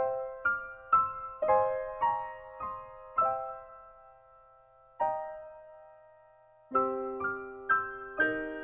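Background music: a slow, gentle piano melody of single struck notes that ring and fade, thinning to one held note around the middle, with lower notes joining in near the end.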